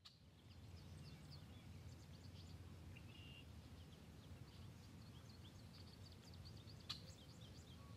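Faint outdoor ambience: small birds chirping in quick, scattered high notes over a low steady rumble, with a single sharp click about seven seconds in.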